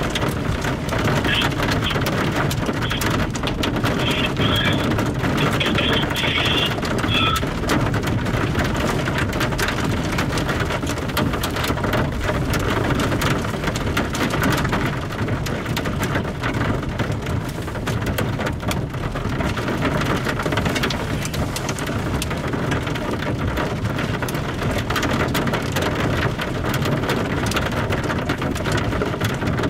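Rain falling on a car's roof and windshield, heard from inside the car: a steady hiss with many sharp ticks of drops striking.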